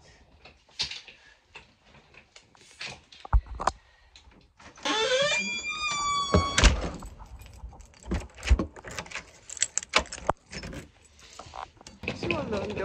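Knocks, bumps and clatter of a house door and a wheeled suitcase being handled on the way out, with a long squeak whose pitch slides and steps about five seconds in.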